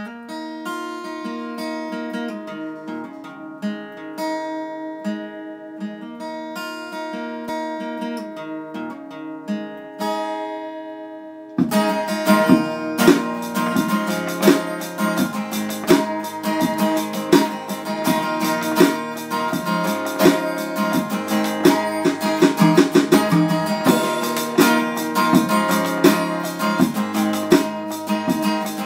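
Background music on acoustic guitar: sparse picked notes at first, then about eleven seconds in a fuller, louder strummed rhythm takes over.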